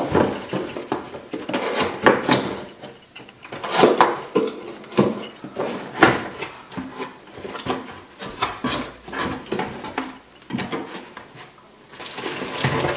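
Cardboard scooter box being handled and opened on a wooden floor: irregular knocks, scrapes and thumps of the box and its flaps. Plastic wrapping starts to crinkle near the end.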